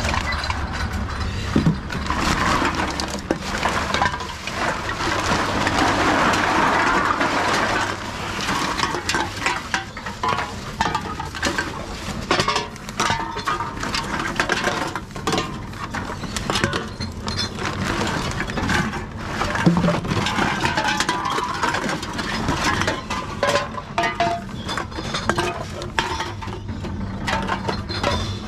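Aluminium drink cans clinking and knocking as they are taken out of a plastic bag and fed one at a time into a TOMRA reverse vending machine, with the bag rustling and the machine's mechanism running underneath.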